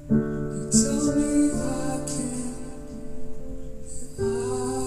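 Music from a song, with held chords that change near the start and again about four seconds in, each change marked by a bright high shimmer.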